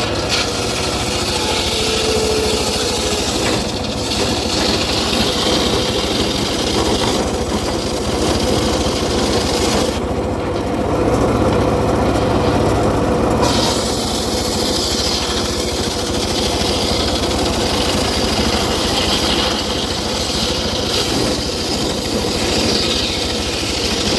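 Engine-powered wood saw running steadily, with a brief dip in its higher sound about ten seconds in.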